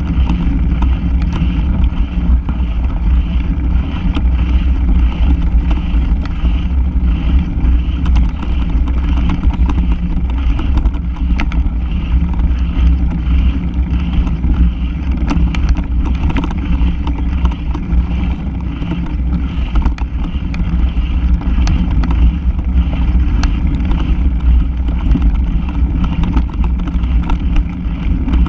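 Mountain bike ridden over a bumpy, leaf-covered dirt trail, heard through a handlebar-mounted camera: a steady low rumble of vibration with frequent small clicks and rattles from the bike and the mount.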